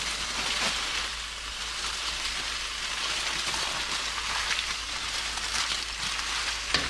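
Aluminium foil crinkling as it is folded and crimped shut over a fish fillet in a hot pan, over the steady sizzle of the fillet frying underneath.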